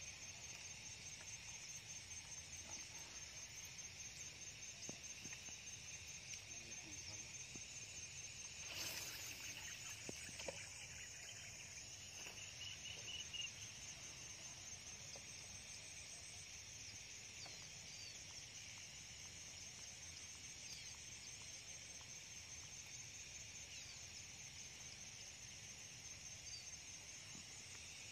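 Faint outdoor ambience of many birds chirping and calling over a steady high-pitched trill, with a brief rush of noise about nine seconds in.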